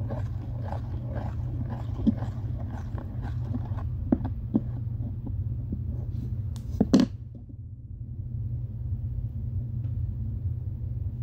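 A pen used as a stirring stick mixing fluffy slime, giving many soft clicks and taps, with a sharper knock about seven seconds in; after that it goes quieter. A steady low hum sits underneath.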